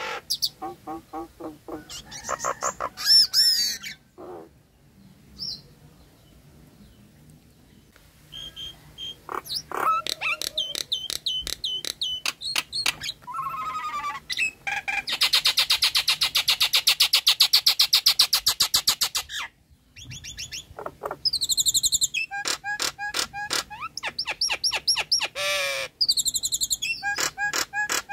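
Nias hill myna calling: runs of loud repeated whistles, gliding notes and harsh calls, with a rapid rattling buzz lasting about four seconds in the middle.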